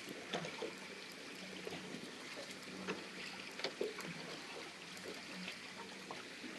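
Fishing boat drifting at sea: a low engine hum with water lapping and splashing against the hull, and a few small knocks and clicks.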